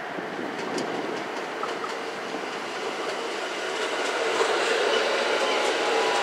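Ainokaze Toyama Railway 521 series electric multiple unit passing close by, its wheels clicking over rail joints. The running noise grows louder about two-thirds of the way in as the cars go past, and a whine sliding slightly down in pitch comes in near the end.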